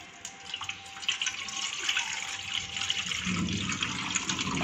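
Water poured in a stream from a mug into a steel bowl, splashing as it lands; the pouring starts about a quarter-second in and grows louder and fuller as the bowl fills.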